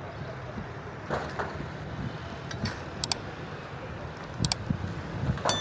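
Outdoor construction-site ambience: a steady low rumble with a few sharp knocks and clicks. Near the end comes one loud metallic clink that keeps ringing.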